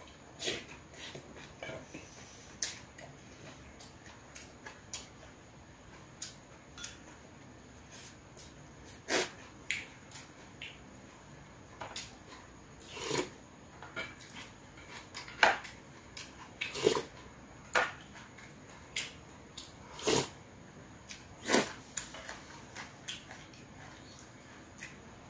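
Close-up eating sounds of a man eating bibimbap: chewing and lip smacks with scattered short clicks, coming irregularly, several louder ones in the middle and second half.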